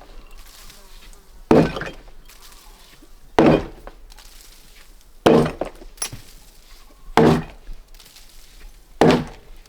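Sledgehammer blows, five heavy strikes about two seconds apart, each with a short ring after it.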